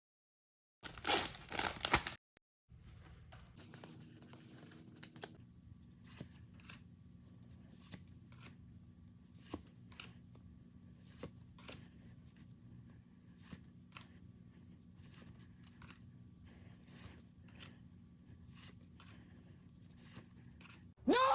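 A Pokémon booster pack's foil wrapper torn open in a short, loud rip about a second in. Then cards are handled and flipped one at a time, with soft clicks every half second to second over a low steady hum.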